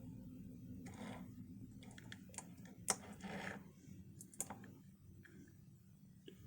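Faint clicks and light rattles of hard plastic toy pieces being handled, with two sharper clicks about three and four and a half seconds in, over a low steady hum.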